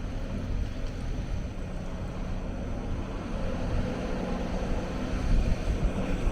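Hyundai 290 excavator's diesel engine running steadily under work, with a brief louder knock about five seconds in.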